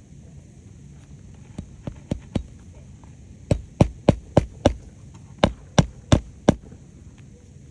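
Hand hammer driving roofing nails into asphalt shingles: a few light taps to set a nail, then two runs of heavy blows, about three a second.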